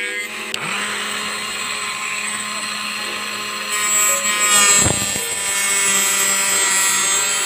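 Small DC motor of a homemade mini circular saw spinning a thin cutting disc at speed, with a steady whine. About four seconds in, the disc bites into a piece of wood and a louder, rougher cutting noise joins the whine.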